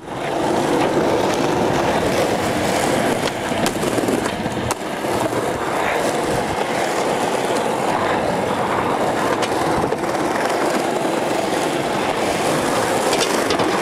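Skateboard wheels rolling steadily over concrete and paving, a continuous rumbling roll with a few light clicks.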